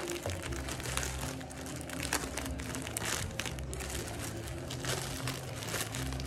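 Clear plastic wrapping crinkling and rustling as hands turn it over and pull it off, with many small irregular crackles.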